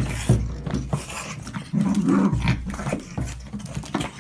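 Small fluffy dog growling in short repeated bursts while it wrestles with a cat, with scuffling knocks on a hard floor. The growls are loudest about two seconds in.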